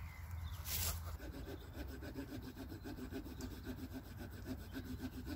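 Swiss Army knife saw blade cutting a slot into the end of a wooden stick in quick, short back-and-forth strokes, several a second, starting about a second in after a brief knock. The slot is where the buck saw's blade will sit.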